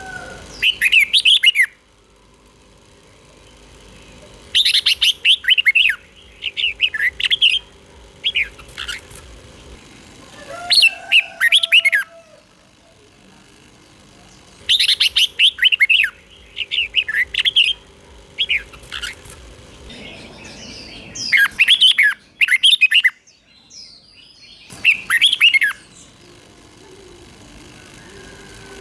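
Red-whiskered bulbul singing: about ten short, rapid warbled phrases, each about a second long and repeated every one to three seconds, with fainter lower bird calls between them.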